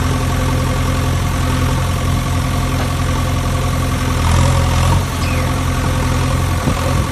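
Steady engine running sound, a machine engine sound effect laid over the play with hand-worked toys, with a low hum and a few fixed tones above it; it swells slightly about four seconds in.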